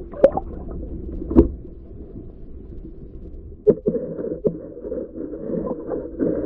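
Muffled water noise heard through a submerged camera: a low, steady rumble with a handful of sharp knocks, two of them close together about four seconds in.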